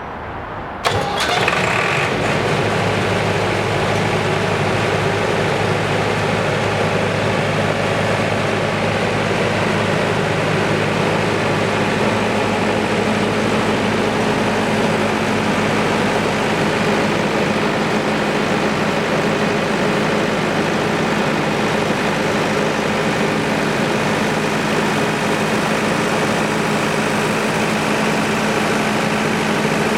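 Cummins S3.8 four-cylinder diesel engine of a 68 kVA generator set starting suddenly about a second in, then running at a steady speed.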